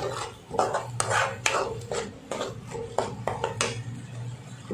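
Metal ladle scraping and knocking against a metal kadai while stirring thick coriander-mint chutney as it cooks down, in quick irregular strokes that stop near the end.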